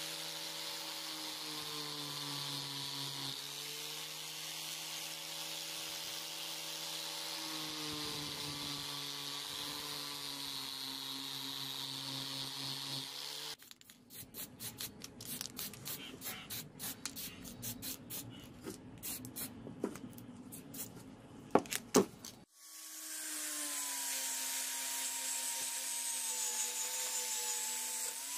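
A power tool fitted with a felt polishing wheel runs steadily, its pitch dipping slightly as it is pressed onto the work. About halfway through it stops and masking tape crackles as it is pulled off the roll and wrapped, with two sharp snaps near the end. Then the polishing wheel runs again on the blade, its pitch wavering under load.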